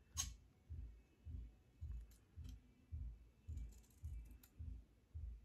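Fiskars fabric scissors snipping through double-faced satin ribbon: a run of soft low thumps a little under twice a second, with a few sharp clicks of the blades, the first just after the start.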